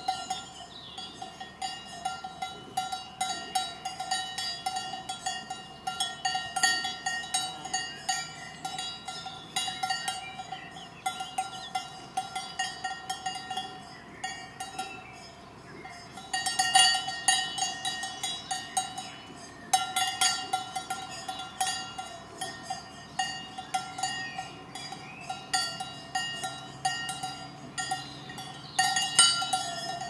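Brass cowbells hung on leather collars of grazing cows, clanking irregularly and continuously as the animals move their heads. There are louder flurries of rapid clanking a little past halfway and again near the end.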